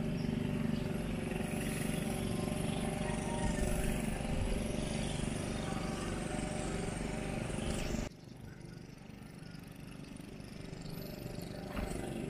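An engine running steadily, a low continuous drone that cuts off suddenly about eight seconds in, leaving a much quieter background.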